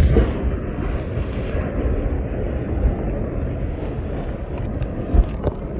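Low rolling rumble from an aerial firework shell's loud boom, with a short sharp thud about five seconds in.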